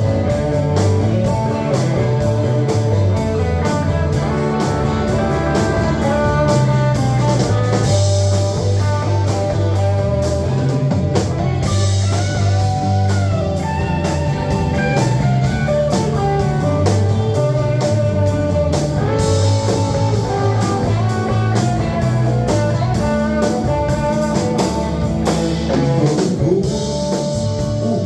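A live band playing an instrumental break: guitar over bass and a drum kit with a steady beat.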